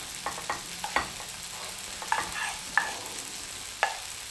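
Wooden spoon scraping wet cat food out of a frying pan into a ceramic ramekin, with a handful of light clinks as spoon and pan knock against the dish, some ringing briefly.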